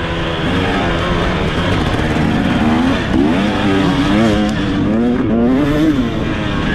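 Off-road racing engine under hard riding, its pitch rising and falling again and again as the throttle is worked on and off through the race course.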